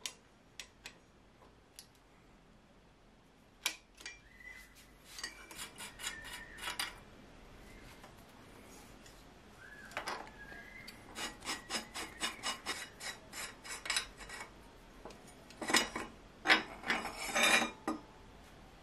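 Hand tools working a bicycle's threaded steel headset: a hook spanner and water-pump pliers click and scrape on the locknut and cup as they are turned loose on the threads. A few single clicks, then runs of rapid clicks and scraping, loudest in rasping bursts near the end.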